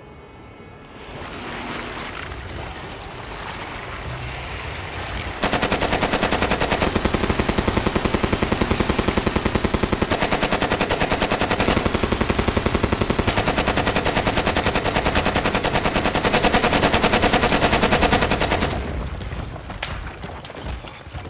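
A rising rush of noise, then a long burst of automatic rifle fire that starts suddenly about five seconds in. The rapid shots run for about thirteen seconds and fade out near the end.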